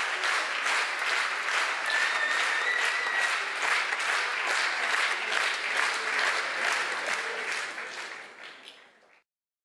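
Audience applauding together in time, about three claps a second, with a short steady high tone about two seconds in. The applause fades out near the end and cuts off.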